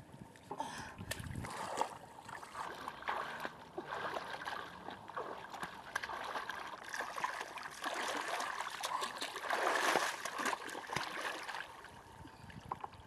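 Shallow muddy water splashing and sloshing as someone wades and gropes through it with their hands, a run of small splashes that gets busier a few seconds before the end, then quietens.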